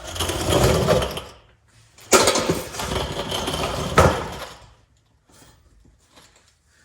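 Cordless electric ratchet wrench running on a nut in two bursts, the second starting with a sharp click about two seconds in and ending with a sharp clack near four seconds, followed by faint handling sounds.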